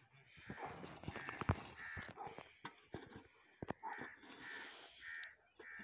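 A bird calling over and over in short calls, roughly two a second in uneven runs, with a few sharp clicks in between.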